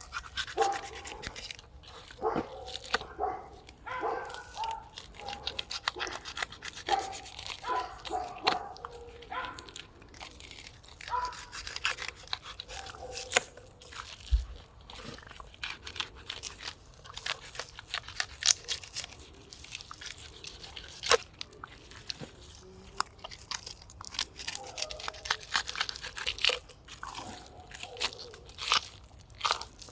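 A knife cutting into a fish: repeated crunching and sharp clicks, with short squeaks in the first third.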